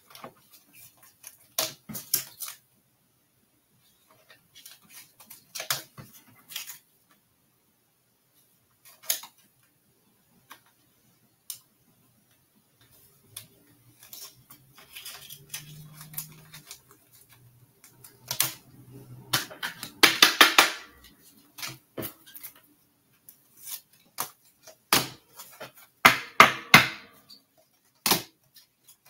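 Small objects being handled on a tabletop: scattered clicks and taps, with short bursts of rustling about two-thirds of the way through and again near the end.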